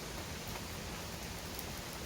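Heavy rain falling steadily, with a dense patter of drops hitting hard surfaces.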